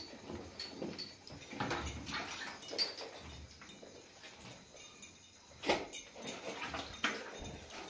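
A cow being milked by hand into an empty plastic bucket: irregular short squirts and knocks against the plastic, a second or so apart, with the loudest pair near the end.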